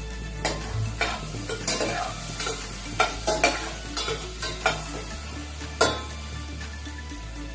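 A metal utensil stirring and scraping chopped onions, celery and carrots in a stainless steel pot on a gas burner, with a light sizzle as the vegetables soften. The scrapes and clinks against the pot come irregularly, the sharpest about six seconds in.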